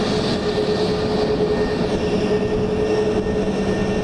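Jet airliner engines running, a loud steady roar of noise with a constant hum through it.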